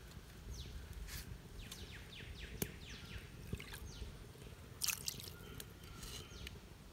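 Mutton and water cooking in the pot: faint dripping and bubbling, a run of short, quick high blips with a few sharp clicks.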